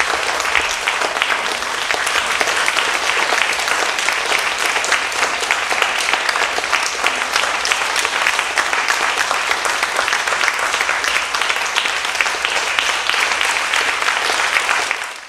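A theatre audience applauding steadily, dense clapping from many hands, with the performers on stage clapping along.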